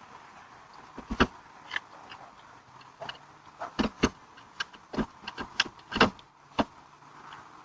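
A dozen or more sharp, irregular knocks and clunks, bunched most thickly from about 3.5 to 6.5 seconds in, from thieves working at a parked car trying to break into it.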